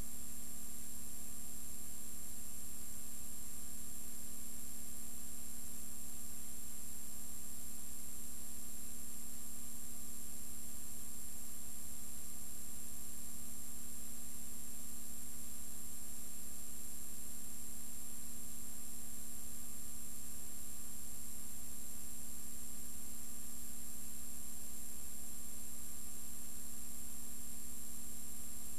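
Steady electrical hum with even hiss and a faint high whine, with no other sound: the noise floor of a silent film's transfer to video.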